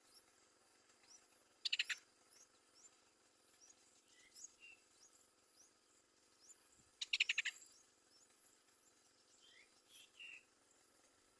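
Bird calls: two short bursts of rapid chattering, about five seconds apart, with faint short high chirps scattered between them.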